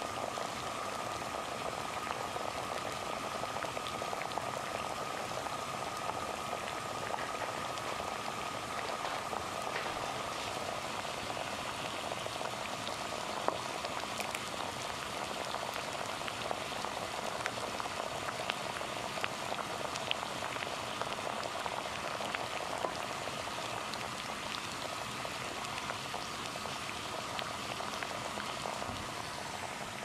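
Water boiling hard over a gas flame, bubbling steadily with many small pops and crackles.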